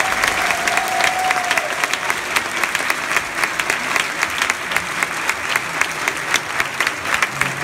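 Audience applauding: a steady, dense patter of many hands clapping. A faint held tone sounds over it for the first second and a half.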